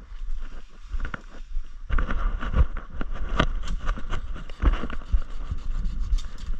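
Footsteps crunching through dry leaf litter and brushing through undergrowth, with irregular twig and leaf crackles that grow much busier about two seconds in, over a low rumble on the microphone.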